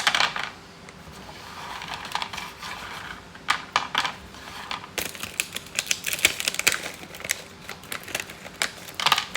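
Dry cat treats being handled and tipped into a dish: rapid, irregular hard clicks and rattles of small pieces, coming thickest in the second half.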